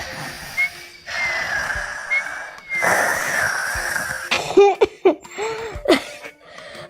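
A child's voice, acting out a sick baby doll, drawing about three long, hoarse, wheezing breaths, then a run of short coughs, with soft music behind.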